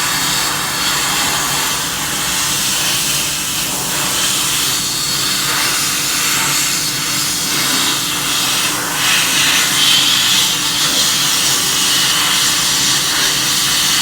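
Sandblaster's compressed-air abrasive jet hissing steadily as it strips the paint off an alloy sport rim.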